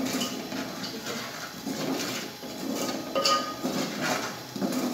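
A spoon stirring and scraping a thick spice paste around a metal cooking pot, with one sharp metallic clink about three seconds in.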